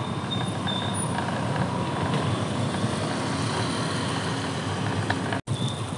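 Street traffic noise, with a motorcycle passing close by. It is a steady, even rumble and hiss that cuts out for an instant near the end.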